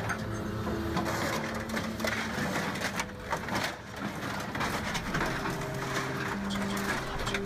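Scrap metal being crushed and cut by a heavy hydraulic machine: continuous grinding and crunching with scattered clanks. Background music with held notes plays underneath.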